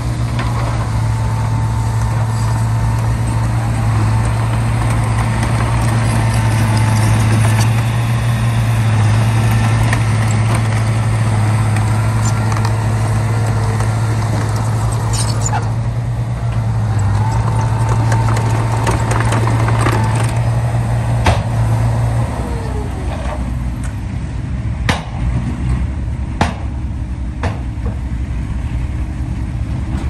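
Diesel engines of a Komatsu crawler bulldozer and a tipping dump truck running with a steady deep drone, which drops away about two-thirds of the way through. A few sharp knocks and clanks follow near the end.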